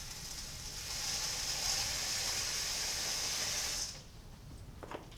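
Tap water running steadily into a pan holding an aggregate sample to cover it for washing, a hiss that shuts off suddenly about four seconds in.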